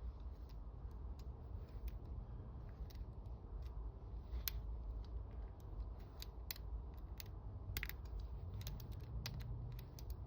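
Lock pick and tension tool working the pins of a Sargent mortise lock cylinder: small, irregular metallic clicks and scrapes over a low steady hum.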